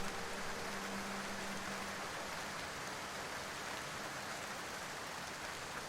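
Steady recorded rain ambience, an even hiss of falling rain. A held low music note fades out about two seconds in.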